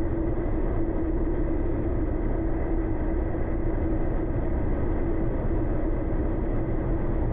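Motorcycle engine droning at a steady cruising speed, with wind rushing over the bike-mounted microphone.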